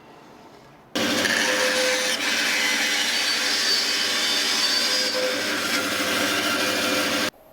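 Power saw cutting wood, a loud steady noise that starts abruptly about a second in and cuts off abruptly near the end.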